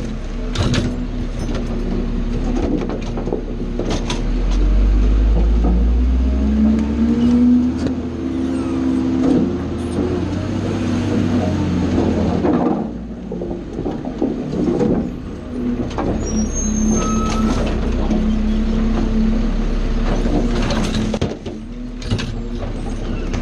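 Automated side-loader garbage truck working: the diesel engine revs up to drive the hydraulic lifting arm, which tips wheeled carts into the hopper with sharp bangs. The engine drone swells for several seconds, drops back about halfway through, and more cart bangs come near the end.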